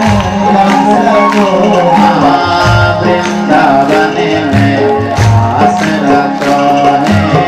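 Devotional song: a man singing over instrumental accompaniment, with a steady held drone and regular hand-percussion strokes.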